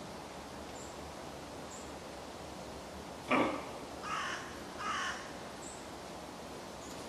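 Red deer hind giving three short, hoarse alarm barks about 0.8 s apart, the first the loudest, then two weaker ones. It is barking at a person close by whose presence, the filmer thinks, the camera's beeps gave away.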